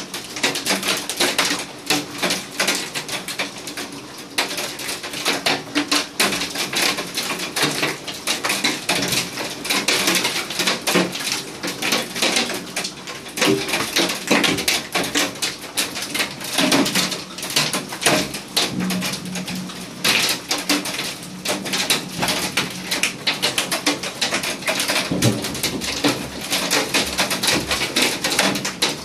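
Hailstones pelting down in a heavy hailstorm: a dense, unbroken clatter of rapid, irregular impacts.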